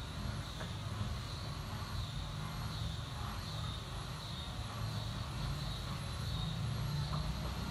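Steady low background rumble, like distant traffic, with a faint high whine that wavers up and down in pitch.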